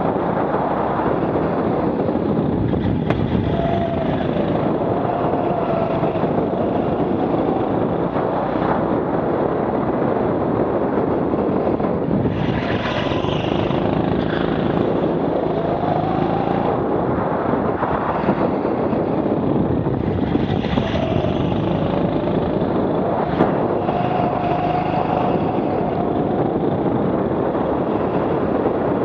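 Indoor rental go-kart's motor running at racing speed, its pitch rising and falling again and again as the kart speeds up and slows for corners, over a steady bed of wind and tyre noise on a helmet-mounted camera.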